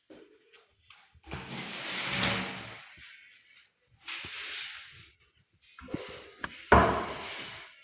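Broom sweeping construction dust: three long swishing strokes, with a sharp knock about three-quarters of the way through, the loudest sound.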